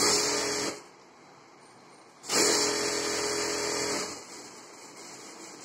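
Industrial lockstitch sewing machine stitching a blouse panel in two runs: a short burst at the start, then a longer run of about a second and a half beginning about two seconds in.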